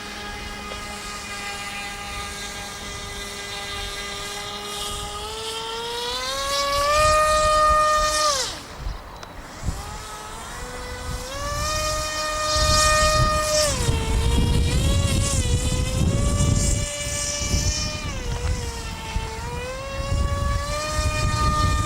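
Battery-powered motor and propeller of a radio-controlled float plane whining as the throttle is worked: the pitch rises about five seconds in, cuts back near nine seconds, then rises again and holds with small dips. From about twelve seconds in a low rushing noise runs underneath as the model churns across the water without lifting off.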